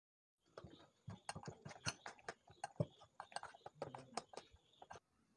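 Metal spoon clicking and scraping against a glass bowl while stirring a thick biscuit-crumb and milk cake batter: faint, irregular clicks, several a second, starting about half a second in.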